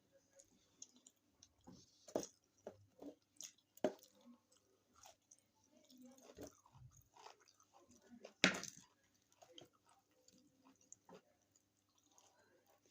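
Close-miked eating sounds: chewing with irregular crunches and mouth clicks, the loudest crunches about two, four and eight and a half seconds in.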